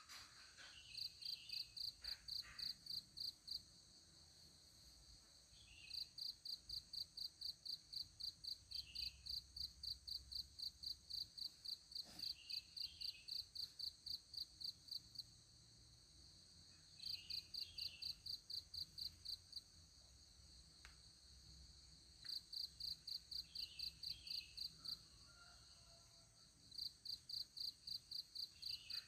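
Faint insect chirping: high, evenly pulsed chirps at about four a second, coming in bouts of several seconds with short pauses between. A steady high-pitched insect drone runs underneath.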